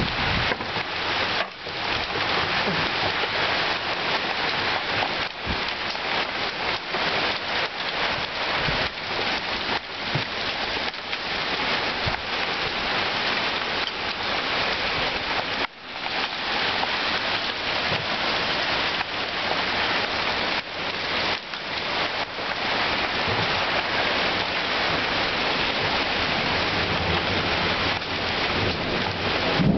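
Heavy thunderstorm rain pouring down in a dense, steady hiss, peppered with many small sharp hits.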